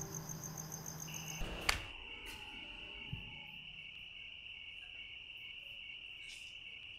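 Crickets trilling steadily at a high pitch, starting about a second in as a music cue dies away. A single sharp click comes just after.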